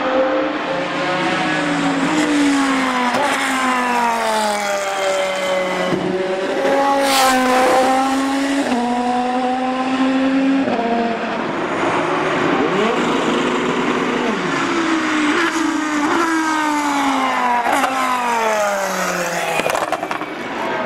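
The 5.5-litre Judd V10 of a Pescarolo LMP1 prototype racing car at high revs. Its pitch falls in a run of steps as it downshifts and rises again as it accelerates, several times over, with one close pass about seven seconds in.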